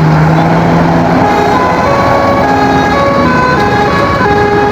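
Tour bus's basuri musical horn holding a low note for about a second, then playing a quick melody of short stepped notes, loud over a noisy background.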